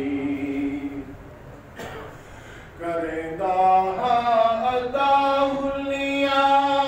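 A man reciting a naat, a devotional poem in praise of the Prophet, in a chanted, sung style without instruments. He holds a long note, pauses about a second in, then begins a new phrase of long, ornamented notes about three seconds in.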